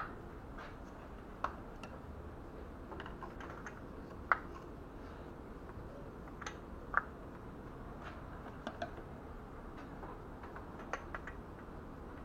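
Light, irregular metal clicks and taps as hydraulic valve lifters are handled and set into their bores in a ZMZ 409 cylinder head. There are a few sharper knocks: one at the start, one about four seconds in and one about seven seconds in.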